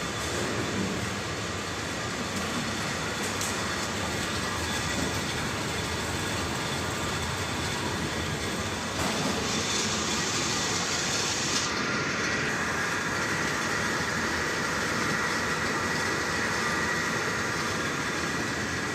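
Industrial washing-and-peeling machine with a rotary filter running steadily: a continuous mechanical rumble and hiss. It gets a little louder about nine seconds in, with a brighter hiss for a few seconds.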